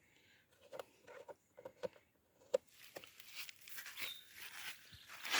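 Faint handling noises of tools and generator parts during servicing: a few scattered light clicks and taps, then scraping and rustling from about three seconds in.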